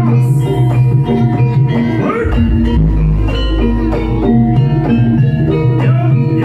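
Live jaranan ensemble music, with drums, gongs and fast repeated pitched notes in a steady rhythm. A deep low tone sets in about two seconds in.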